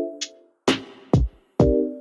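Electronic music with a drum-machine beat: deep kicks that drop in pitch, sharp hits and short bright hi-hat-like hits, under short repeated chords.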